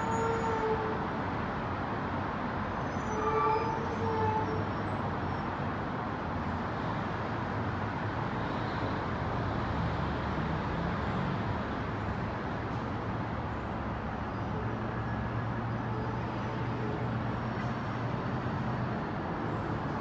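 Steady rush of city traffic heard from high above the streets, with a brief pitched tone about three and a half seconds in, like a distant car horn, and a low hum in the second half.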